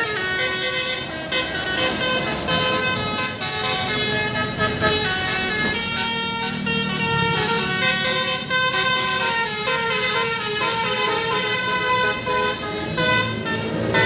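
Telolet basuri melodic vehicle horn playing a tune, its multi-note electronic horn tones shifting from note to note without a break.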